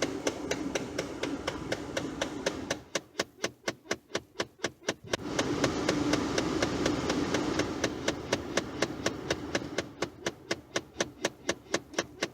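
Ford F-150 clicking behind the dash: a rapid, even clicking at about four clicks a second that keeps going throughout, which the owner believes is a failing blend door actuator. Under it runs the rush of the heater-blower air, which drops away for about two seconds and comes back, then runs quieter near the end.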